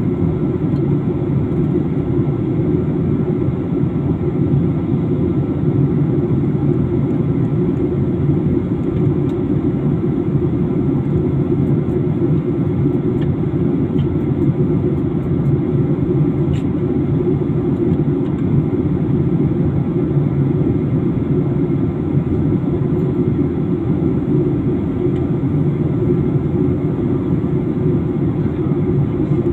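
Steady drone of an airliner's engines and airflow heard inside the passenger cabin in flight, a constant low rumble with no change in pitch.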